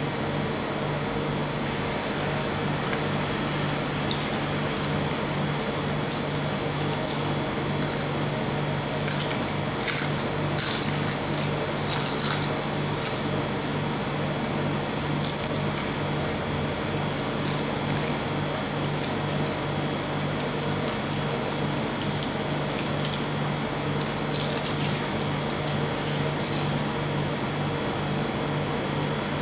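Steady hum of the ice cream roll machine's refrigerated cold plate running, with bursts of crinkling as plastic candy cane wrappers are peeled off by hand.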